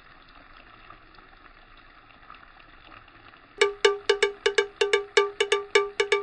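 Rapid, evenly pitched metallic ringing strikes, like a small bell, about five a second, begin about three and a half seconds in. Before them there is only a faint hiss.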